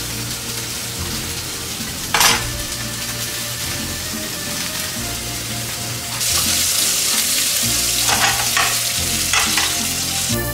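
Steak searing in a hot frying pan, a steady sizzle. There is a sharp clatter about two seconds in, and the sizzle turns louder and hissier from about six seconds in.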